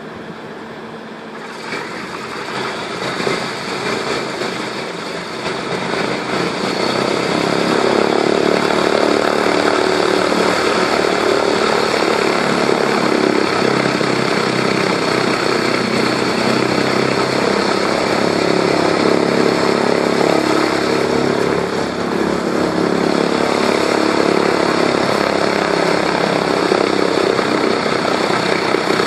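Boeing B-17 Flying Fortress's Wright R-1820 Cyclone nine-cylinder radial engines starting up. An engine catches about a second and a half in and runs unevenly for a few seconds. The sound then builds into a steady, loud run of the engines.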